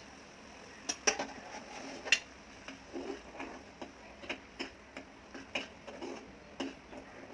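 Light, irregular clicks and taps of a spoon against a metal cooking pan as coriander powder is added to the simmering curry, the sharpest about one and two seconds in.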